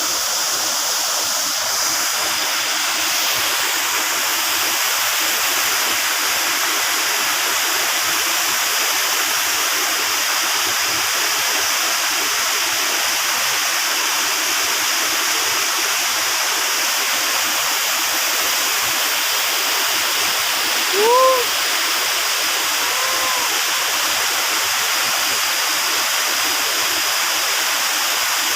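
Waterfall rushing steadily. About three-quarters of the way through, a short rising-then-falling call cuts through, followed by a fainter one two seconds later.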